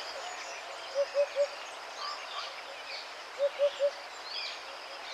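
Forest birds calling: one bird gives short hooting notes in quick sets of three, about a second in and again past three seconds, over the high chirps and twitters of other birds.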